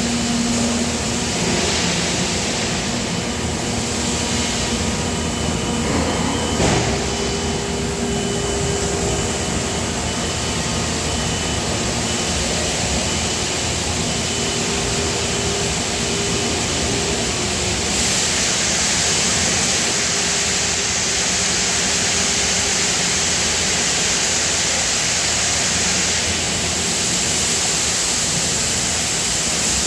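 Steady hum and hiss of running industrial machinery, with a single knock about seven seconds in and a brighter hiss from about eighteen to twenty-six seconds.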